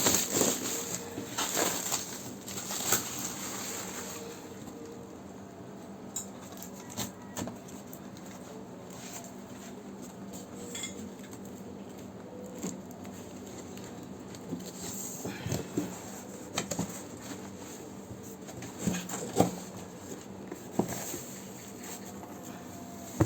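Scattered clicks, knocks and light rattles of hard parts and packaging being handled while a compressor is unboxed. It is busier in the first few seconds, then sparse, with the loudest knock about two-thirds of the way through.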